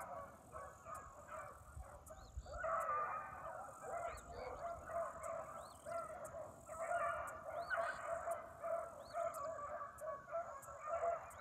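A pack of beagles baying in chorus, many overlapping voices in full cry as they drive a rabbit through thick cover, with short lulls about two and a half and six and a half seconds in.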